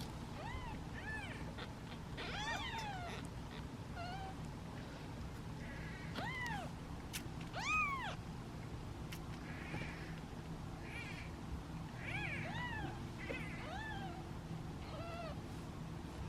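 Several young kittens mewing over and over in short, high-pitched calls that rise and fall, sometimes two at once, the loudest one near the middle: hungry, impatient kittens waiting to be bottle-fed.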